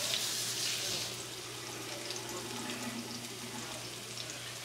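Food sizzling in a frying pan over a gas burner: a steady hiss with scattered small pops, louder during the first second and then settling lower.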